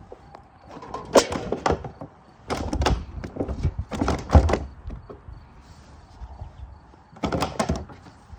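Three bouts of close, scratchy knocking and rubbing, each a cluster of quick clicks over a dull thump; the loudest falls a little after the middle.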